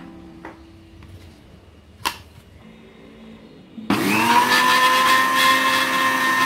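A sharp click about two seconds in. About four seconds in, an electric countertop blender is switched on: its motor spins up with a quick rise in pitch, then runs steadily as it beats two raw eggs.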